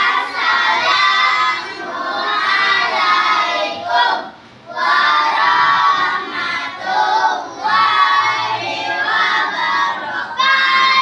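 A class of young children singing a song together in unison, in sung phrases with a short pause for breath about four seconds in.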